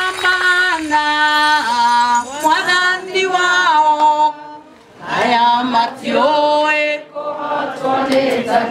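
A woman singing, holding long notes that slide from one pitch to the next, with a short break a little past the middle.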